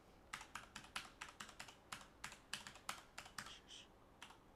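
Faint typing on a computer keyboard: a quick, uneven run of roughly twenty keystrokes that stops shortly before the end.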